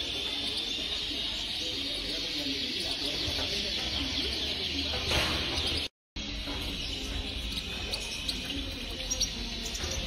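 A dense chorus of many caged finches, goldfinches among them, chirping and twittering together, with lower background music underneath. The sound drops out for an instant about six seconds in.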